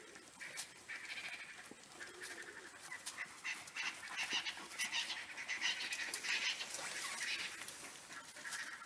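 African wild dogs giving high-pitched twittering calls at a fresh impala kill, the excited calling of a pack over its food. The calls come thick and fast through the middle and thin out near the end, with scattered small clicks.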